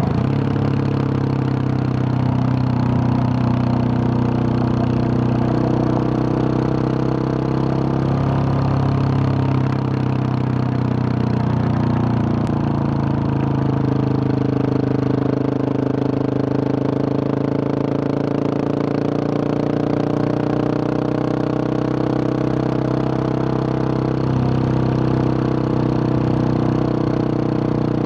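Husqvarna 701 Supermoto's single-cylinder engine running at a steady cruise through a Wings exhaust fitted with a large dB killer, its pitch drifting gently up and down with small throttle changes.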